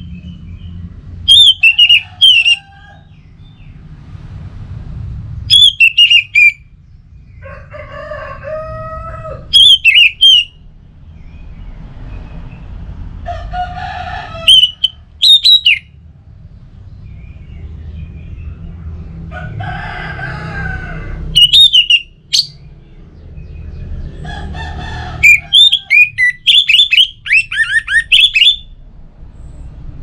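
Orange-headed thrush singing in six loud bursts of quick, high notes, the last and longest near the end. Roosters crow a few times in the background between the bursts.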